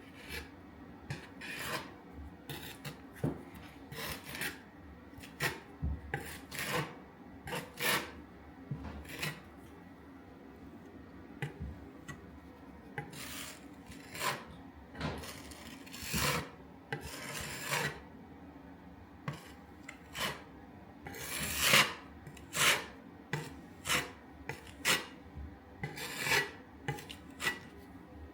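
Spatula scraping Polyfilla filler into holes in a wall: many short, irregular scraping strokes as the filler is pressed in and smoothed, with the strokes loudest a little past the middle.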